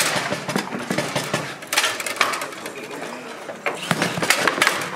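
Table-football play on a Bonzini table: sharp clacks and knocks of the ball against the figures and the table walls as the rods are worked. There are bunches of quick clacks about two seconds in and again from near four seconds on, with a quieter spell between.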